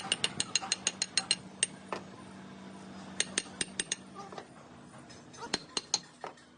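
Rapid, sharp metallic clicking, about seven clicks a second, in three runs, the first the longest, over a low steady hum that stops about four seconds in.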